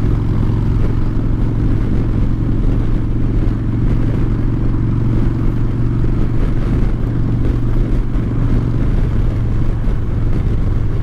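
Harley-Davidson Dyna Fat Bob's V-twin engine, fitted with Vance & Hines Short Shots exhaust, running steadily as the bike cruises at freeway speed.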